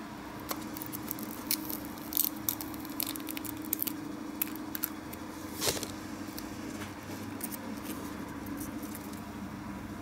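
Thin resin casting being pulled out of a silicone mould and handled: scattered small crackles and clicks as the brittle flash flexes and snaps, over a steady low hum.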